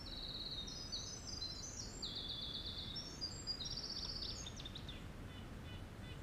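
Winter wren singing a long, high song of rapid trills that jump between pitches, tapering into a few faint notes about five seconds in, over a faint steady background hiss.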